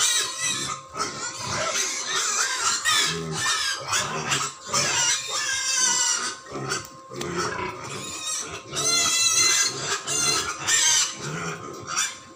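Pigs squealing in a string of repeated high-pitched calls, loudest about three quarters of the way through.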